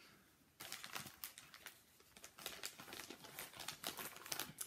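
Crinkling and rustling of crinkly material being handled, a dense run of irregular crackles that starts about half a second in.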